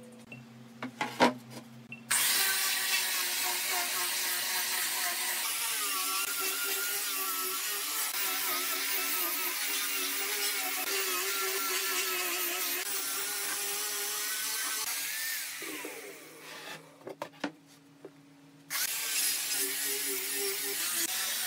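Handheld angle grinder with a sanding disc sanding pine boards: a sharp knock, then the grinder starts about two seconds in and runs steadily, its motor pitch wavering as it is pressed onto the wood. About fifteen seconds in it winds down, and it starts up again near the end.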